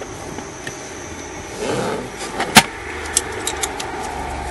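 Hand tools clinking as they are picked up: one sharp clink about halfway through, then a few lighter clicks, over a steady low hum.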